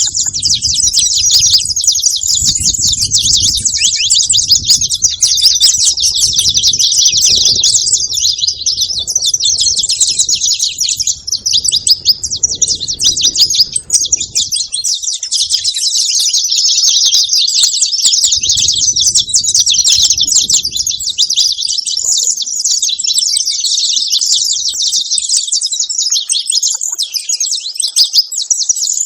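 Saffron finch (canário-da-terra) singing without pause, a rapid, dense run of high chirps and trills.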